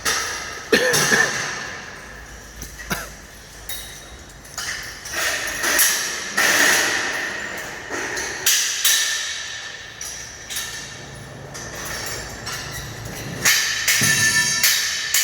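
Steel scaffolding parts clanking and ringing as they are knocked apart and handled during dismantling: a string of irregular metallic strikes, some leaving a short ring, with a dense cluster near the end.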